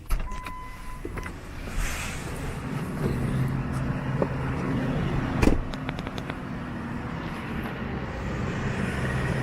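An engine idling steadily, with a short beep in the first second and a single knock about five and a half seconds in.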